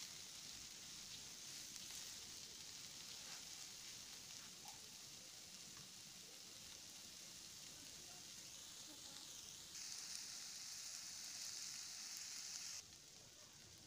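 Shredded boiled chicken with chopped cabbage, capsicum, onion and tomato sizzling faintly in hot oil in a frying pan, a steady hiss that grows louder about ten seconds in and drops back near the end.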